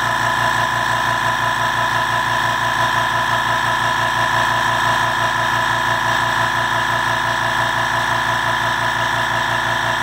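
Harbor Freight Fortress 2-gallon ultra-quiet air compressor running steadily, with a fast, even pulsing under a steady whine. It is pumping the tank up near the end of a fill from empty, with tank pressure climbing past about 120 psi toward its 135 psi cutoff.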